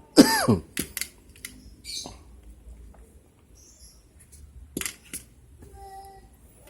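A person coughs once, a hoarse sound falling in pitch. Scattered light clicks and small knocks follow at irregular intervals.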